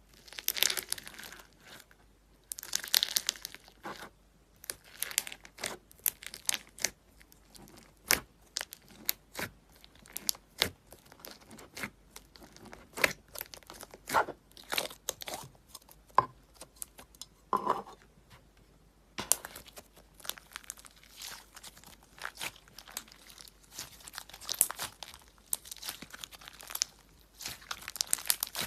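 Slime being squeezed, poked and stretched by hand, giving off irregular sharp pops and crackles in uneven bursts with short pauses.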